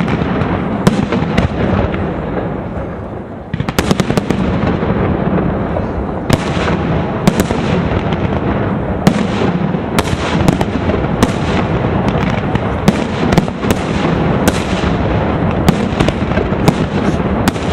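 Aerial firework shells bursting in a dense display: a continuous rumble with sharp bangs every second or so, and a quick flurry of cracks after a brief lull about three and a half seconds in.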